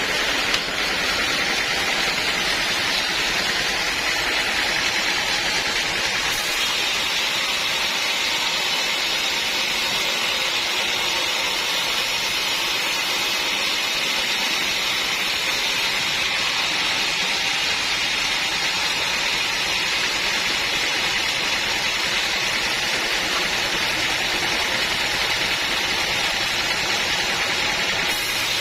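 Sawmill machinery running steadily, a constant loud noise that is strongest in the upper-middle range, with a brief knock about half a second in.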